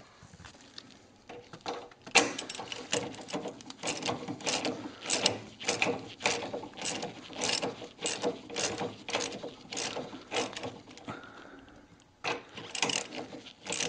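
Hand ratchet clicking in quick repeated strokes, about three a second, as an 18 mm strut tower bolt is loosened. There is a brief pause a little before the end, then more strokes.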